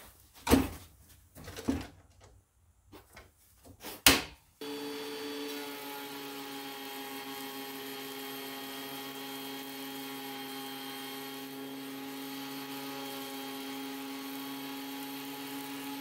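A few sharp clicks and knocks as the cutter head of a DeWalt DW734 thickness planer is lowered and locked. About four and a half seconds in, the planer starts and runs with a steady, unchanging hum while an ash board goes through for a light 1/16-inch pass.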